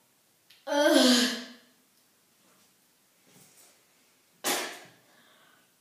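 A boy's loud, breathy, gasping vocal outburst about a second in, lasting under a second, then a shorter breathy burst near the end, as he reacts to a mouthful of Tic Tacs.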